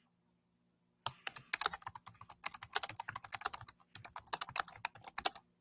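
Typing on a computer keyboard: rapid key clicks in two quick runs with a short pause between, as a sentence is typed out.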